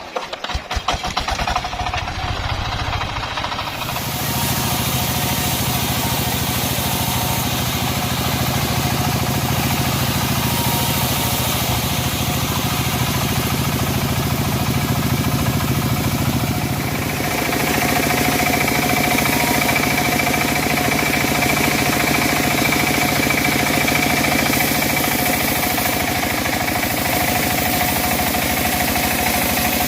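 Homemade bandsaw sawmill with its engine running, pulsing unevenly for the first few seconds before settling into a steady run. A little past halfway a steady higher whine joins in.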